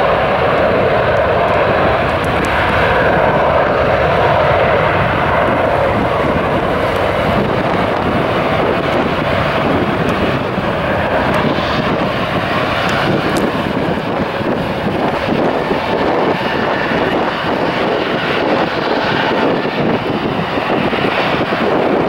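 Turbofan engines of a jetBlue Airbus A320-family airliner at takeoff power: a loud, steady jet roar through the takeoff roll and liftoff.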